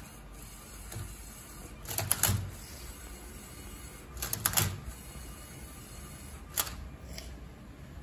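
LEGO Mindstorms Robot Inventor Rubik's Cube solver at work, its motors driving plastic arms and base that clack as they turn and tip the cube. The clatter comes in short bursts about every two seconds.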